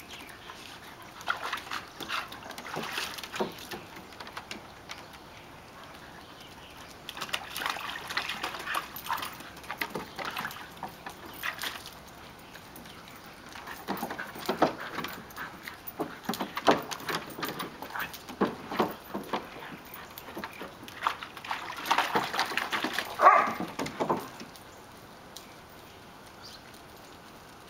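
Several dogs, including a Siberian husky and a Great Dane mix, playing roughly: scattered bursts of whimpers and short barks with paws and water being splashed in a plastic wading pool. The busiest, loudest stretch comes in the second half.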